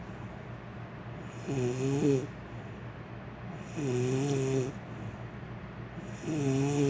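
A woman snoring loudly: three pitched snores, each under a second, at an even pace about two and a half seconds apart.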